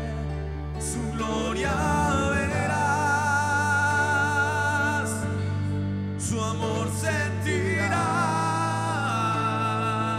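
Live worship band playing a slow praise song: sustained keyboard chords and a steady bass under a sung melody, with long notes held with vibrato.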